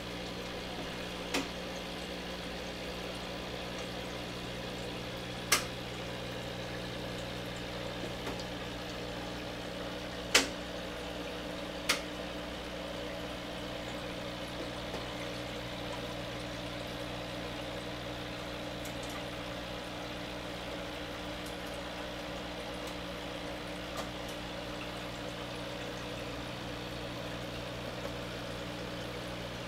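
Aquarium air bubbler running steadily: an even fizz of rising bubbles over a steady low hum. Four short sharp clicks come within the first half.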